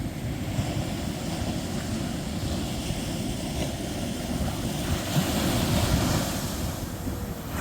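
Ocean surf, with wind rumbling on the microphone; the hiss of a wave washing up the sand grows louder about five seconds in.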